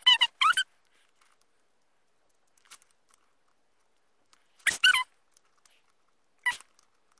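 Dog whining in a few short, high-pitched bursts whose pitch bends up and down, with quiet stretches between them.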